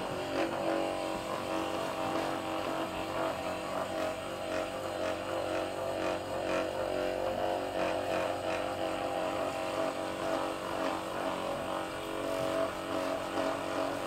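Handheld percussion massage gun running with a steady buzzing hum while pressed into the neck and trapezius muscles.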